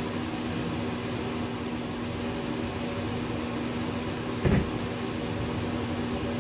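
Steady machine hum holding one constant tone. About four and a half seconds in there is a single wooden knock as the end-grain cutting board is set back down on its painter's pyramids.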